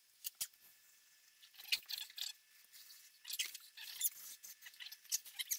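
Thick upholstery foam being cut by hand with a blade, in short, irregular scratchy strokes that come in clusters.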